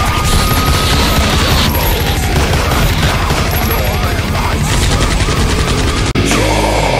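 Loud heavy metal music driven by very fast, rapid-fire drumming, with a high note that slides down about a second in; a brief break near the end.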